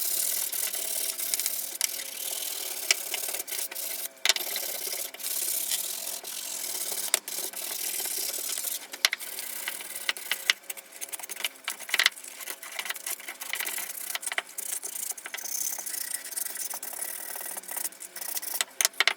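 Rusty steel hand saw blade being scrubbed by hand with an abrasive to clean off the rust: a continuous scratchy rubbing with scattered clicks and a brief pause about four seconds in.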